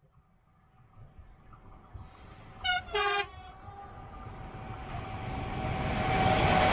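ÖBB class 1216 electric locomotives on an approaching car-carrier freight train: two short horn blasts about a third of a second apart, near the middle, the second a little longer. They sound over a steady whine and a train rumble that grows steadily louder as it comes closer.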